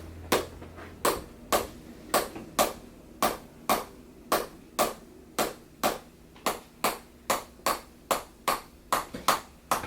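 Chiropractic tapping adjustment along the spine: a steady series of sharp taps, about two a second, coming a little faster near the end.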